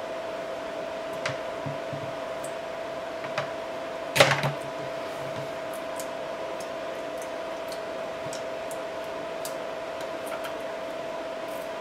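Scattered light clicks and knocks of a pipe brush and plastic drain-trap parts being handled under a washbasin, with one louder knock about four seconds in, over a steady hum.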